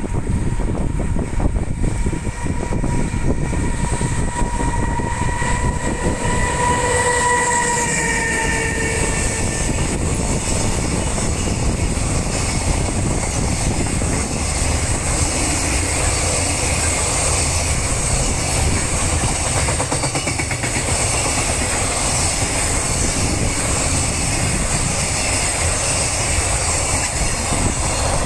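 EH500 electric locomotive and its long container freight train passing close by. A steady tone from the locomotive dips in pitch as it goes past about seven seconds in, then the container wagons keep up a steady rumble and clatter over the rails.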